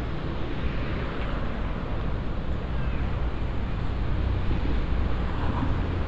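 Steady outdoor city ambience: a continuous low rumble with a rushing hiss above it, with no distinct events.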